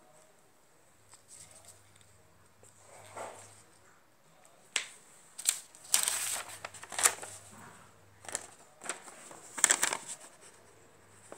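Paper rustling and handling noise as a sheet of lined notebook paper is picked up and handled close to the microphone: scattered crinkles and light clicks, loudest about six and ten seconds in.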